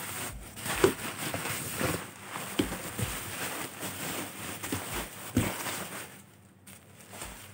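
Bubble wrap and plastic packing crinkling and rustling as it is handled and pulled out of a cardboard box, a busy run of crackles that dies down about six seconds in.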